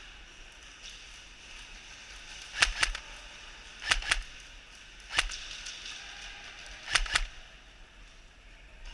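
Airsoft gun shots: about seven sharp cracks, mostly in quick pairs, starting about two and a half seconds in.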